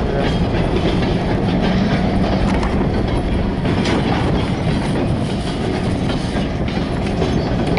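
Freight train rolling past: the hopper cars' wheels clicking and clanking over the rail joints, over the steady rumble of the diesel locomotives hauling them.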